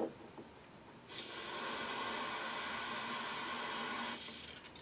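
Aerosol can of engine storage spray hissing steadily for about three seconds, starting about a second in and tailing off near the end, as it is sprayed through the spark plug hole into a lawn mower engine's cylinder to coat it for winter storage.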